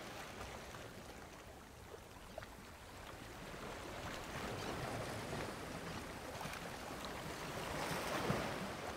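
A soft, steady rushing noise with no distinct source, like distant surf or wind. It thins out about two seconds in and swells again toward the end, with a couple of faint clicks.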